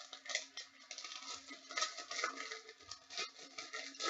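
Faint rustling and light tapping from small handling movements, over a low steady hum.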